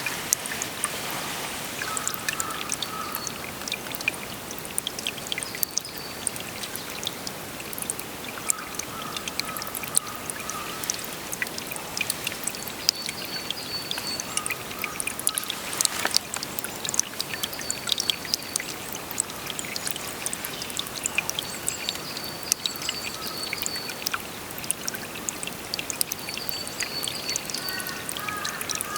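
Water flowing and trickling steadily, with many small splashes and drips. Short trilling calls come and go over it several times.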